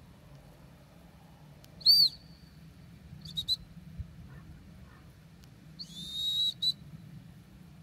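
Gundog whistle blown to direct a working dog: one short loud blast about two seconds in, two quick pips a second later, and a longer blast near the end, each a high steady note.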